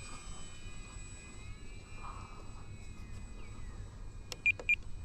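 Faint steady whine of the RC plane's electric motor in flight, drifting slightly in pitch, over a low rumble. Near the end the Spektrum NX8+ transmitter beeps twice, short and high, as the elevator trim is clicked down.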